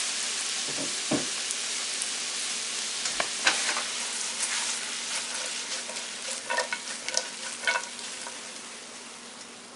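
A beef, cattail and bull thistle stir-fry sizzling in a nonstick frying pan, the pan shaken by its handle with a few light knocks and scrapes. The sizzle fades gradually.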